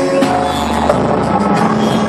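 Music playing loud through a car audio system, with the bass reproduced by an Eclipse subwoofer whose cone is moving hard.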